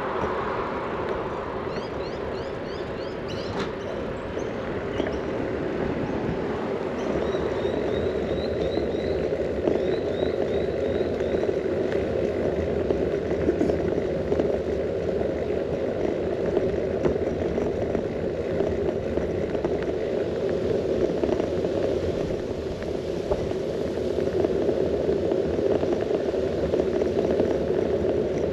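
Steady rumble of a bicycle rolling on asphalt, with wind on the handlebar-mounted GoPro's fur-covered microphone. A few brief high chirps come a few seconds in and again around eight to ten seconds, along with the odd faint click.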